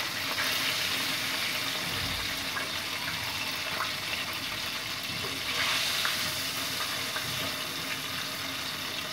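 Chicken wontons frying in hot oil in a wok: a steady sizzle, swelling briefly about six seconds in, as the frying nears its end.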